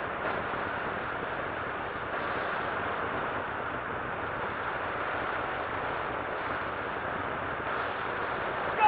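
C-47 in flight, heard from its open jump door: a steady rush of wind over the drone of its twin radial engines.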